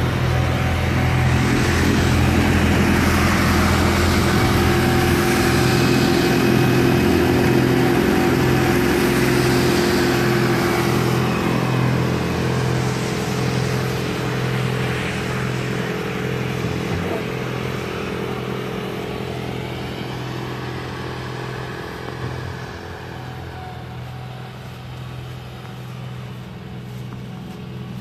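Massey Ferguson 1736 tractor's three-cylinder diesel engine running steadily under load, with its front-mounted MF1410 two-stage snow blower churning and throwing snow. The sound is loudest in the first half and fades over the second half as the tractor moves away.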